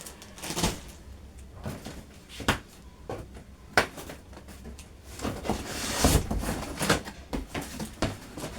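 Groceries being handled: several sharp knocks and clicks as items are set down or moved, with plastic packaging rustling, a longer rustle about six seconds in.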